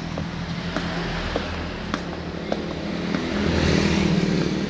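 Motor vehicle engine running steadily, growing louder about three and a half seconds in, with light footsteps ticking about every half second.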